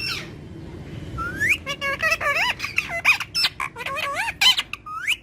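Indian ringneck parakeet chattering and squawking in a rapid run of high, wavering calls, starting about a second in.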